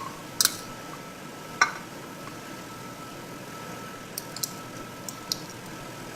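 Sharp clicks and clinks: two louder ones in the first two seconds, then four lighter ticks between about four and five and a half seconds, over a faint steady high tone.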